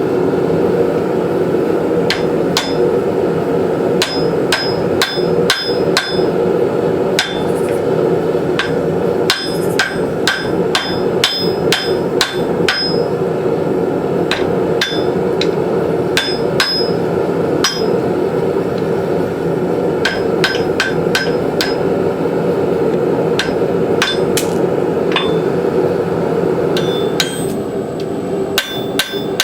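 Hand hammer forging the hot steel of a horse hoof rasp into a tomahawk head on an anvil: irregular runs of ringing strikes, often two or three a second, with short pauses between runs. A steady rushing noise runs underneath and eases near the end.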